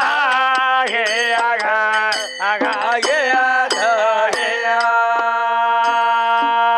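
Men singing the refrain of a north Karnataka gee gee pada folk ballad, the melody winding at first and then settling about halfway in on one long held note over a steady drone. Small hand cymbals clink in a steady beat.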